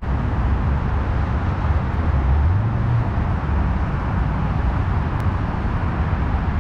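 Road traffic rumbling steadily, with one vehicle's engine note rising about two and a half seconds in.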